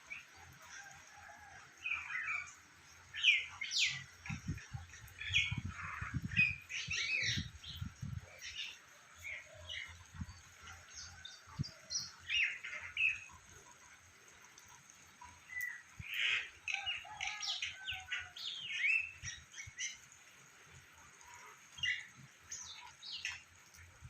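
Birds chirping and calling in repeated short bursts, with a run of low thuds for a few seconds near the start.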